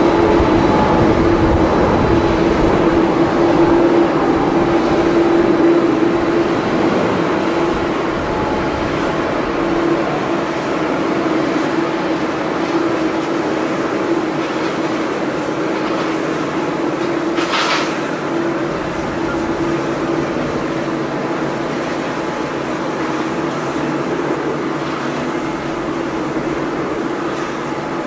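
Twin jet engines of a Boeing 777 airliner at takeoff thrust: a steady rumble with a held hum, slowly fading as the jet climbs away.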